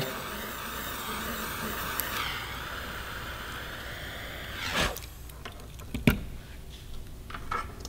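Butane micro torch flame hissing steadily while heating a heat-shrink solder sleeve connector, stopping abruptly about five seconds in. A couple of light clicks follow.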